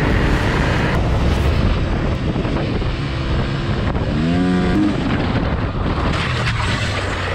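Motorcycle engine running while riding, with wind rushing over the camera microphone. About four seconds in, a short pitched cry rises and then falls.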